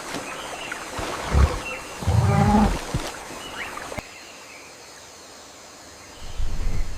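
Low animal calls: a short grunt, then a longer, louder moaning call about two seconds in, with thin bird chirps above them. After an abrupt cut it goes quiet, then a further low call comes near the end.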